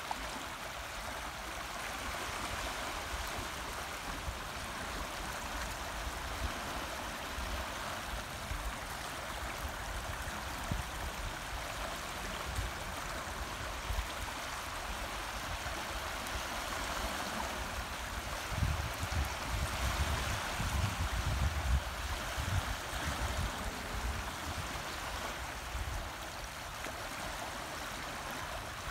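Shallow water rushing and rippling steadily over a shingle beach, a continuous babbling flow. A low rumble comes and goes underneath, strongest about two-thirds of the way through.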